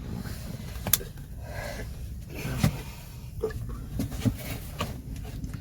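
Passenger train carriage heard from inside: a steady low rumble with irregular clicks and knocks, the sharpest about two and a half seconds in.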